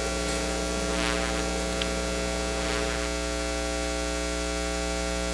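Steady electrical mains hum with a stack of even overtones, unchanging throughout.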